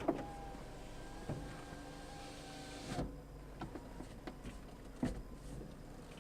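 Car suspension with the steering turned hard right while driving: a strong, steady creaking squeal for about three seconds that ends in a sharp knock, then a few more separate knocks. The fault is unexplained; it appears only on the move with the wheel turned past two-thirds, never at a standstill.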